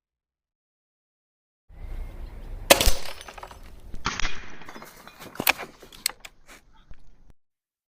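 Snowpeak GR800S gas-piston air rifle firing once with a sharp crack, followed about a second later by a crash and a few clinks, typical of a glass bottle target breaking.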